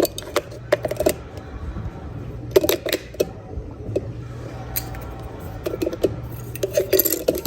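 Clusters of short clicks and clattering knocks, as of objects being handled and set down, over a steady low hum.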